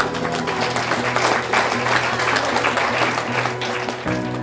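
A roomful of wedding guests applauding, over soft acoustic guitar music. The clapping cuts off suddenly about four seconds in, leaving only the music.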